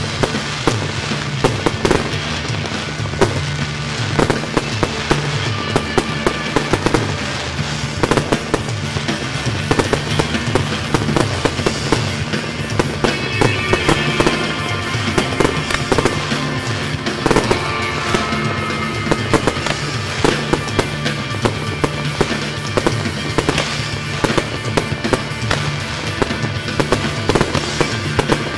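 Fireworks going off in rapid, irregular bangs as aerial shells and comets are launched and burst, over the show's music playing throughout.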